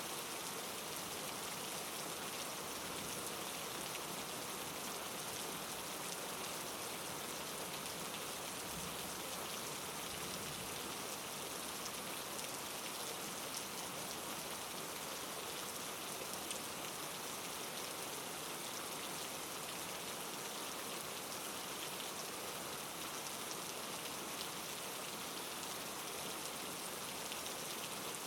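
Steady rain falling: an even hiss with faint scattered drop ticks, played as a white-noise background track.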